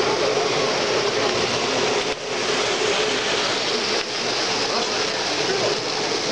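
Steady din of a busy show hall, with American Flyer model trains running on a layout and a constant hum underneath.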